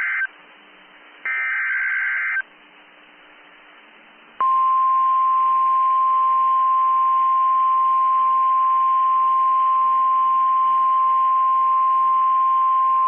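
Emergency Alert System SAME header data bursts: the tail of one screeching digital burst, then one full burst about a second long. After about two seconds of quiet hiss comes a single steady NOAA Weather Radio 1050 Hz warning alarm tone, held for about nine seconds before it cuts off, signalling the start of a severe weather warning broadcast.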